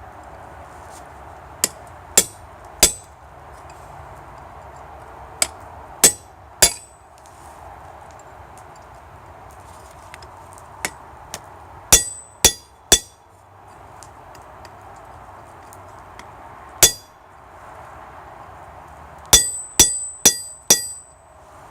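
Hand hammer blows ringing on an anvil in groups of two or three, about sixteen strikes in all, while cutting into a hot titanium bar that doesn't cut easily. A steady rushing noise runs between the groups of blows.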